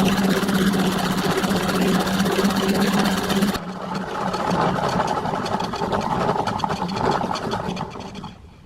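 Small electric motor running with a steady hum. About three and a half seconds in the sound changes abruptly to a different, finely rhythmic machine sound that dies away near the end.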